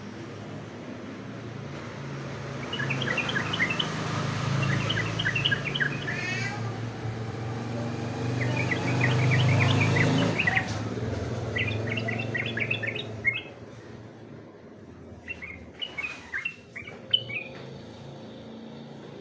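Yellow-vented bulbul (trucukan) singing in repeated bouts of quick, sharp chirping notes, over a low steady rumble that fades out about two-thirds of the way through.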